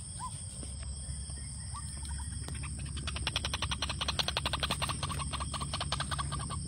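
White-breasted waterhen calling: a few short notes, then from about two and a half seconds in a rapid, even run of about ten notes a second that stops near the end. A steady low hum lies underneath.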